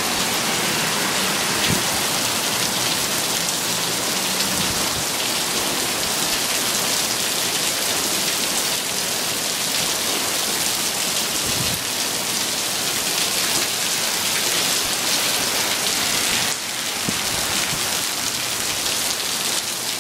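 Heavy rain falling steadily on pavement and parked cars, a dense even hiss that eases slightly near the end.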